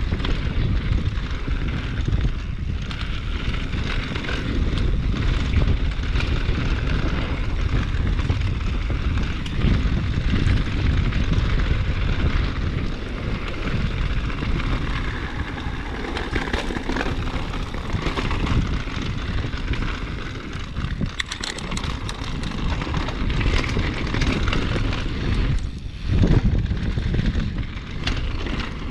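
Downhill mountain bike ridden fast over a dirt trail: a steady rumble of wind on the body-mounted camera's microphone and tyres on dirt, with a few sharp clattering knocks from the bike in the second half, the loudest near the end.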